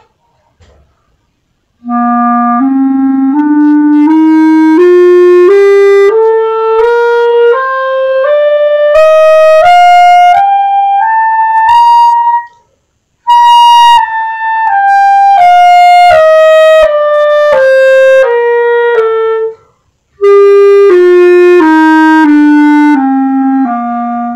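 B-flat clarinet playing the C major scale over two octaves: about fifteen notes stepping up from the low C to the high C, then back down, about one note every 0.7 s. The notes within each run are joined without breaks. There is a short pause after the top note and a breath about two-thirds of the way down.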